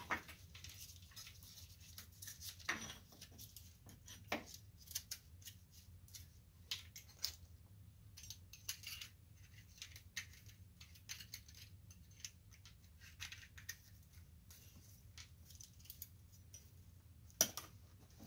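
Small brass lamp-socket parts clicking and clinking faintly as they are handled and fitted together by hand, with a sharper click near the end.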